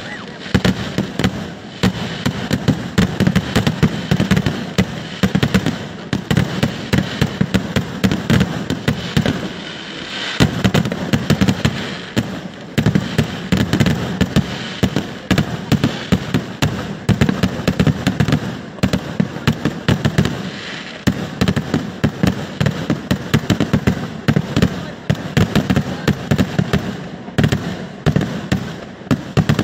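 Kerala festival fireworks (vedikettu) going off in a dense, continuous barrage of bangs and crackles, many per second, easing briefly about ten seconds in and again about twenty seconds in.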